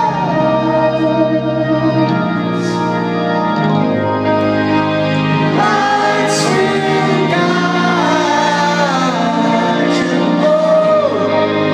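Live band music amplified through a stadium sound system and heard from within the crowd: sustained organ chords under a male lead vocal.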